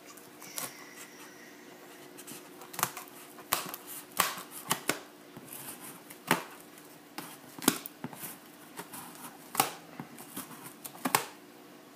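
Scissors cutting along the packing-taped seam of a cardboard box: a series of irregular sharp snips and scrapes as the tape is slit, with the loudest cuts in the second half.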